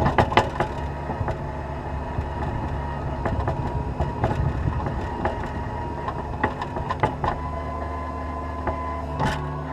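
Cat 236B skid steer loader's diesel engine running steadily while plowing snow, with several sharp clanks and knocks from the machine, the loudest in the first second.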